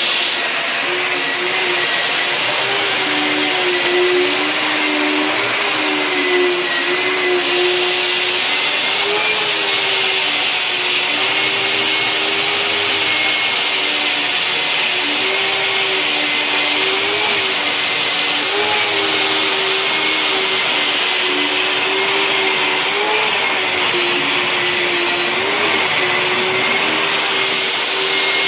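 Stand-mounted electric diamond core drill with a 4-inch core bit running steadily while cutting into concrete. Its steady motor whine dips slightly in pitch now and then.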